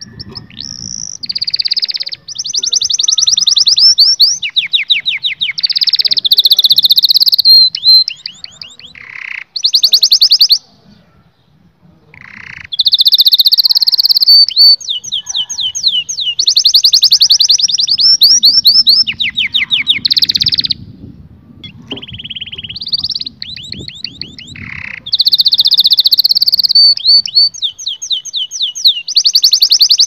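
Domestic canary singing: long phrases of fast trills and rolls of repeated high notes, with a pause of about two seconds a third of the way in.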